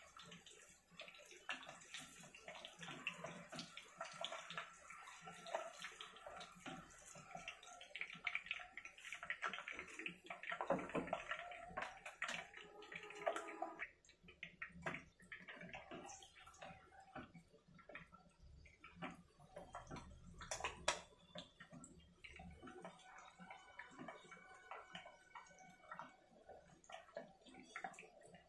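Boiled eggs and potatoes shallow-frying in hot oil in a pan: a soft, steady sizzle full of small crackling pops.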